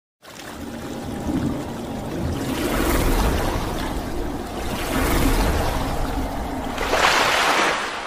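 Intro sound effect of rushing, splashing water over a low rumble, swelling in several surges with the biggest splash about seven seconds in, then starting to fade.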